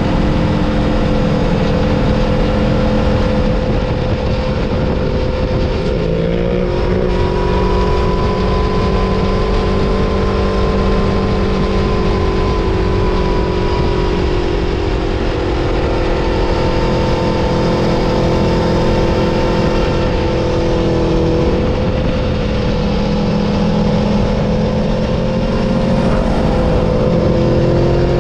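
Aprilia Tuono V4 Factory's V4 engine running hard at racing speed, with wind rushing over the front-mounted camera. The engine pitch holds high and nearly level for long stretches, shifts about six seconds in, and rises again near the end.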